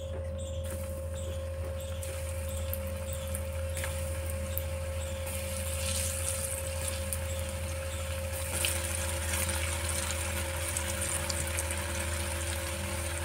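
Bhakarwadi pieces deep-frying in hot oil: a sizzling hiss that starts about a second in and grows louder as more pieces go into the pan. A steady low hum runs underneath.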